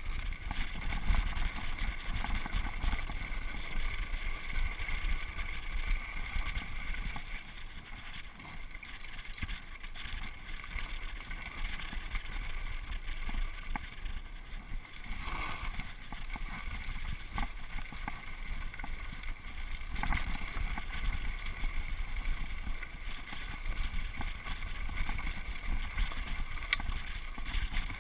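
Mountain bike descending a dirt and rock singletrack: wind buffeting the microphone over the steady rumble of knobby tyres on the trail, with the bike rattling and knocking over bumps.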